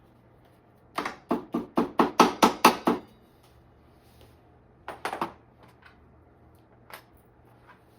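Metal tool knocking on metal bike parts: a quick run of about ten sharp, ringing knocks, a short burst of three a couple of seconds later, then one more.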